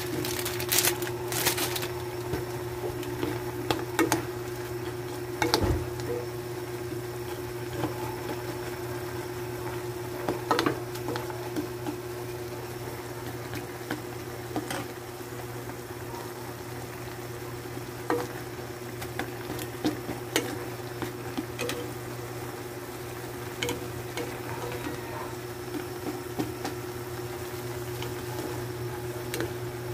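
A small pot of noodle broth with vegetables boiling on a gas stove, bubbling steadily, with scattered light knocks of a plastic spoon against the pot as the instant noodle block is stirred and pressed down.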